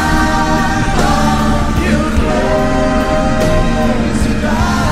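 Background music: a song with sung vocals holding long notes over a continuous band backing.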